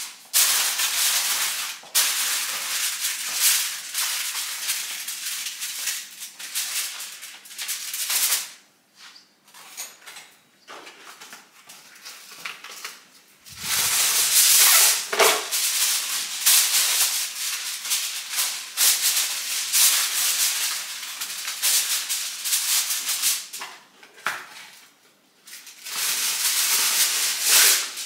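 Plastic bag and foil wrapping crinkling and rustling as food is packed up, in long stretches with quieter pauses about a third of the way in and again near the end.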